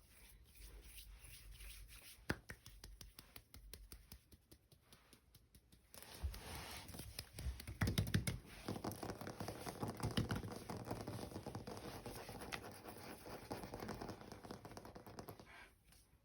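Close-miked ASMR tapping and scratching: many small clicks and scrapes, getting louder and denser about six seconds in.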